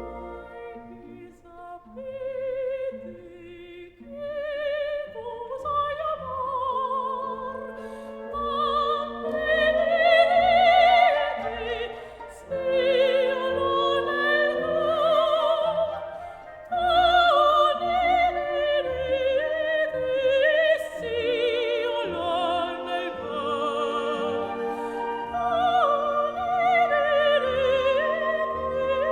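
Background music: an operatic voice singing with heavy vibrato over an orchestral accompaniment.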